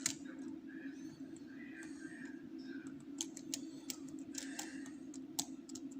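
Scattered small metallic clicks and ticks of a lock pick and tension wrench working the pins of an ASEC rim cylinder, over a steady low hum, with faint voices in the background.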